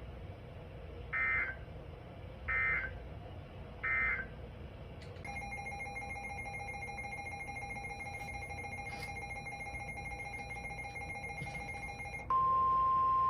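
Emergency Alert System data burst sent three times: three short, identical buzzy squawks about a second and a half apart. Then a steady electronic alert tone holding several pitches for about seven seconds. About a second before the end, the louder steady single-pitch NOAA Weather Radio alert tone begins, which announces an incoming warning.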